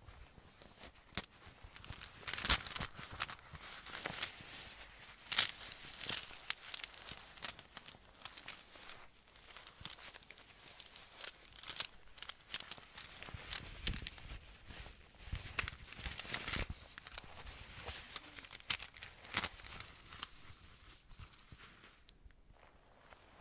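Close-miked ASMR rustling and crinkling with irregular sharp taps and clicks, from hands handling objects; it thins out near the end.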